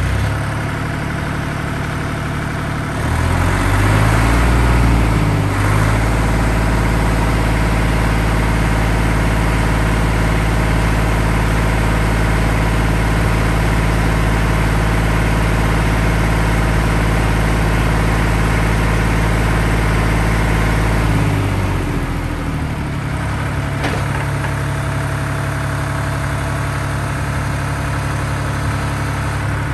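Deutz D40 06 tractor's air-cooled diesel engine idling, then revved up about three seconds in and held steady at higher speed. At about 21 seconds it drops back to a slower idle.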